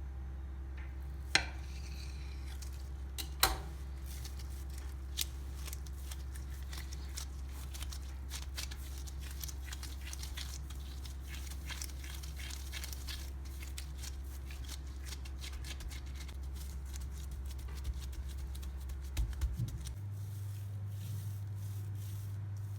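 Kitchen utensil work: two sharp knocks early, then many light clicks and scrapes of utensils against dishes, with a few more knocks near the end, over a steady low hum that changes pitch near the end.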